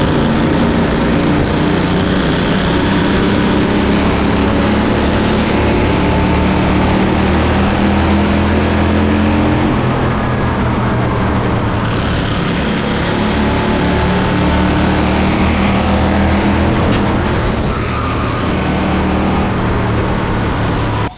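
Race car engine running hard at speed, loud and steady with a sustained engine drone.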